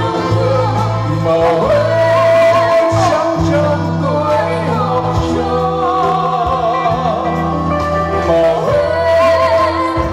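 Live amplified song: a singer's voice with vibrato over a band backing with a steady bass line, played through a stage PA.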